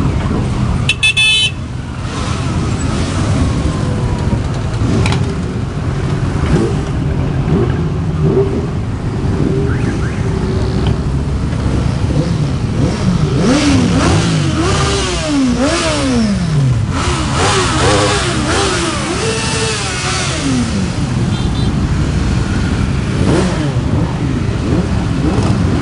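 A stream of motorcycles riding past one after another, many engines running together, with riders blipping the throttle so that engine notes rise and fall, most of all through the middle of the stretch.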